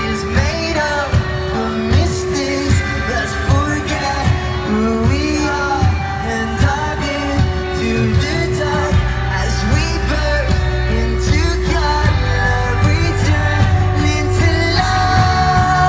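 Live pop-rock band playing, with singing over drums, guitars and a steady bass line; a long held note comes in near the end.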